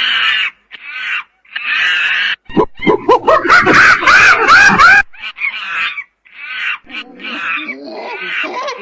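Monkeys calling in a series of short squealing cries, loudest about three to five seconds in, where the calls rise and fall in pitch.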